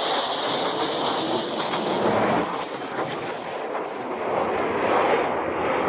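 F-16 Fighting Falcon fighter jet making a high-speed pass: loud jet noise with a high-pitched hiss on top for the first two seconds or so, then a broad rumbling roar as it goes on past.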